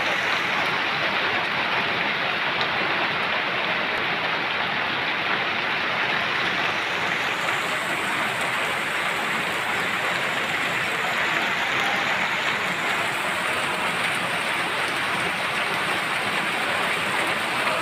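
Steady rain falling on wet ground and plants, an even hiss that does not let up.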